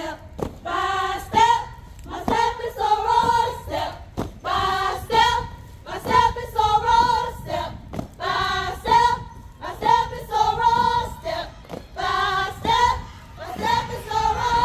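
A group of women's voices chanting in unison, a sung sorority chant in short repeated phrases about every two seconds, with a few sharp knocks marking the beat.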